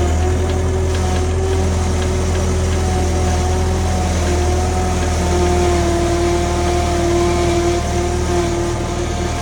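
Backhoe's diesel engine running at a steady speed, a loud low drone with a steady whine above it that wavers slightly in pitch.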